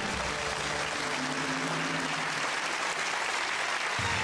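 Studio audience applauding a contestant's correct answer on a TV quiz show, with a few held music notes underneath.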